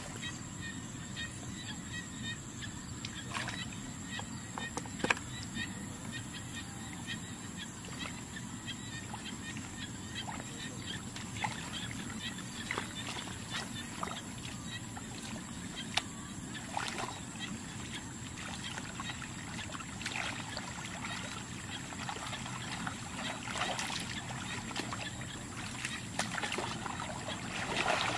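Water sloshing and splashing, with scattered small clicks and knocks, over a steady low hum and a thin steady high tone.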